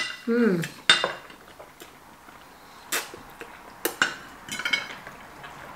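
Metal forks clinking and scraping on dinner plates while eating noodles: a handful of sharp clinks spread over the few seconds, one ringing briefly about four seconds in.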